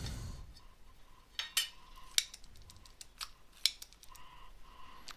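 Light metallic clicks and taps of hand tools working on a circuit board, about six in a few seconds. A faint steady high tone comes and goes behind them.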